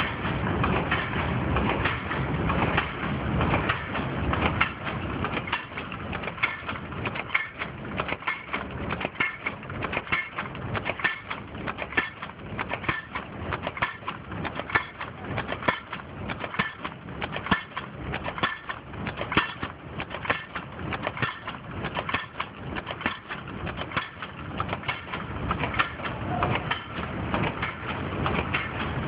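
Automatic dog-chain making machine running, a rapid, continuous clatter of small metallic clicks and knocks as it feeds wire and bends it into chain links.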